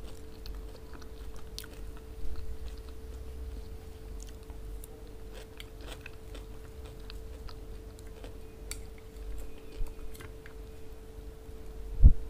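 Close-miked mouth sounds of a person chewing a mouthful of rice and okra stewed with lamb: soft wet clicks and smacks over a steady faint hum. A dull low thump comes near the end.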